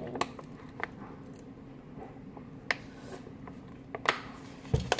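Light clicks and clinks of kitchenware and containers being handled: about half a dozen sharp ones spread apart, over a steady low hum.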